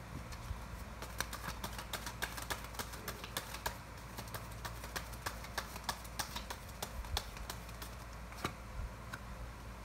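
Tarot cards being shuffled and handled by hand: a run of quick, irregular clicks and light snaps of card stock.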